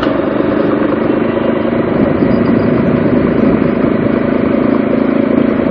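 Motorcycle engine running steadily on the move, mixed with wind and road noise, heard from an action camera mounted on the bike.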